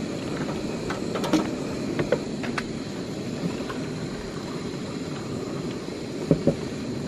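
Steady low rushing background noise with a few light clicks and knocks scattered through it, two of them close together near the end.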